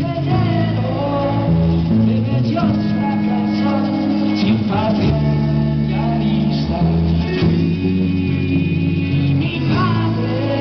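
Live band music: electric guitars over a changing bass line, with hand-played conga drums.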